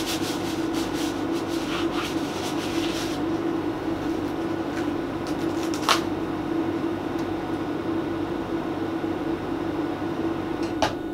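Foam packing wrap crinkling as it is pulled off a plastic petri dish, over a steady low hum. A sharp click about six seconds in as the dish is handled, and a few more light clicks near the end.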